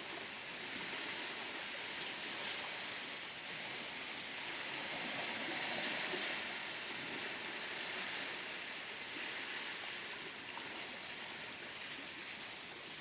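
Sea waves washing in a bay: a steady rush of water that swells about six seconds in.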